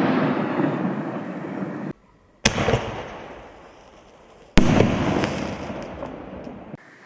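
Aerial firework shells bursting: a loud, dense burst that cuts off abruptly, then a sharp bang with a long fading tail, and about two seconds later another bang fading the same way, with abrupt breaks between edited clips.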